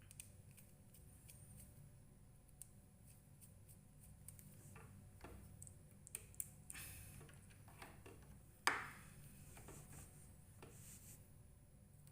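Near silence with faint, scattered clicks and handling noises from hands working cables and small parts, and one sharper click about nine seconds in. A faint steady low hum runs underneath.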